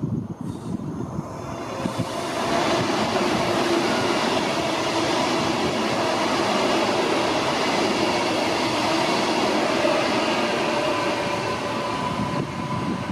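Queensland Rail New Generation Rollingstock electric multiple unit running past the platform. It builds up over about the first two seconds to a steady loud rush of wheels on rail, with a steady whine in it.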